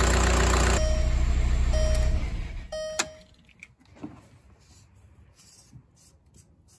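A VW Beetle's 1.9 TDI diesel engine idling with engine flush in its oil, then shutting off and shuddering to a stop about two seconds in, while a warning chime beeps three times about a second apart. A sharp click follows, then faint clicks as the oil filter housing cap is unscrewed.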